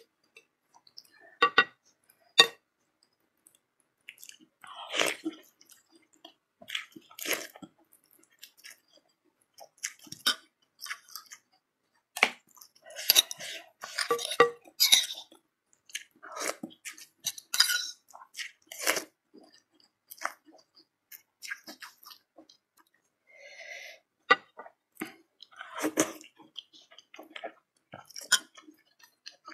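Close-up eating sounds of a person having bakso (Indonesian meatball soup) with rice vermicelli: irregular wet chewing and smacking, with a run of noodle slurps about halfway through. Two short clinks of a metal spoon on the ceramic bowl come near the start.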